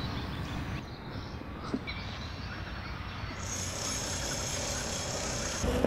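Outdoor background ambience with a low steady rumble and a single click early on; about halfway through, a steady high-pitched trill joins in and stops just before the end.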